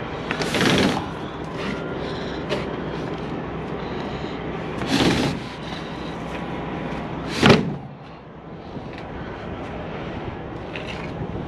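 Three sudden knocks or clatters over a steady low rumble. The first lasts about a second, the second comes about five seconds in, and the last is short and the loudest, about seven and a half seconds in.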